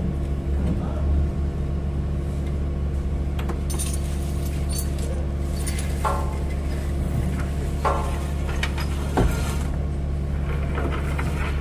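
Steady low hum of running machinery, with loose metal parts clinking and jingling several times; the sharpest clink comes a little after nine seconds in.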